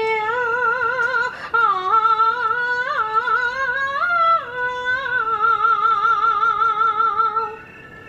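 Chinese opera singer holding long, drawn-out sung notes with a wide, fast vibrato and slow slides in pitch, ending about half a second before the close.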